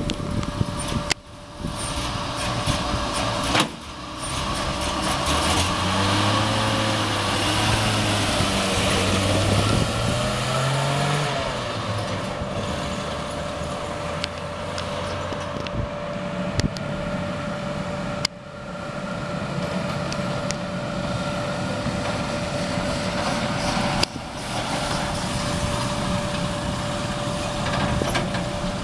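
A 1951 GMC pickup truck's engine running and driving off, its pitch climbing for several seconds as it accelerates, mixed with street traffic noise. The sound is broken by several abrupt breaks.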